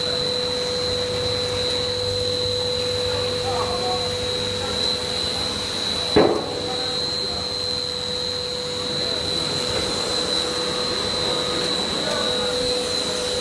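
PVC blown-film extrusion machine running: a steady mechanical drone carrying a constant high whine and a lower steady hum. A single sharp knock sounds about six seconds in.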